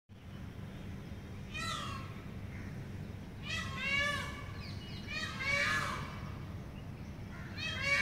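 Indian peafowl (peacock) calling: four loud, wailing, meow-like calls, evenly spaced about two seconds apart, the last cut off near the end, over a steady low hum.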